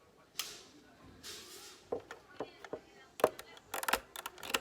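Small hard objects being handled on a work surface: a brief rustle and a hiss of movement, then a string of sharp clicks and taps that comes thicker over the last second and a half.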